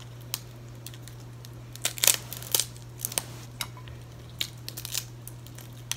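Shell being picked off a boiled shrimp by hand: scattered crackles and clicks, the loudest cluster about two seconds in, over a faint steady low hum.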